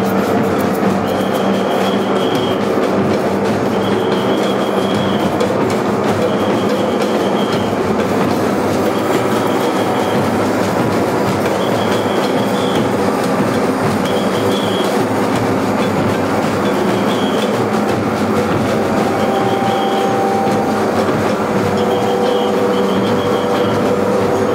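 Loud, dense wall of live experimental noise music: amplified electric guitar played with a stick, with drums, under a sustained drone and a high pulse that comes back about once a second.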